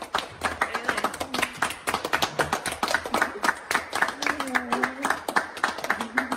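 Fast, steady hand clapping, with a dog howling along in drawn-out, wavering calls, the longest about four seconds in.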